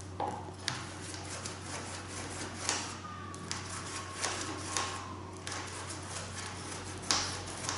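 A small burnishing tool rubbing and scraping across paper and card in short, irregular strokes as glued paper pockets are pressed flat onto a card base, with a sharper stroke near the end.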